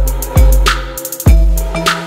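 Background music with a steady drum beat and deep bass thumps over sustained tones.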